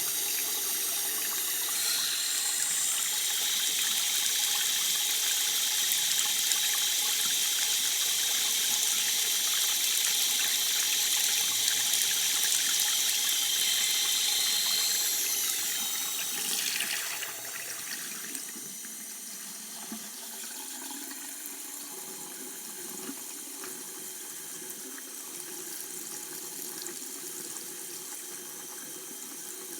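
Water running from a tap in a steady hissing stream. A little past halfway the sound slides lower in pitch and gets quieter, then carries on steadily.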